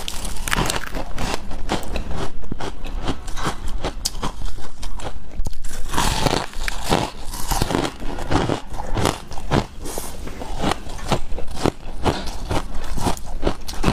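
Ice being bitten and chewed: a dense run of irregular crackling crunches, with a fresh bite about six seconds in.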